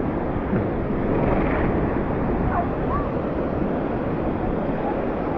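Steady wind noise buffeting the microphone, mixed with the wash of ocean surf.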